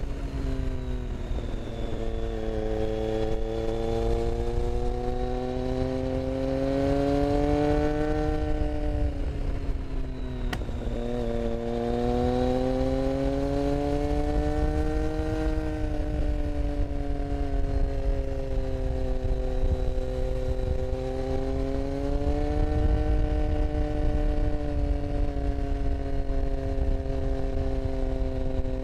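Motorcycle engine heard from the rider's seat, its pitch rising and falling with the throttle through the bends, dropping sharply with a click about ten seconds in. Wind rumble on the microphone runs underneath.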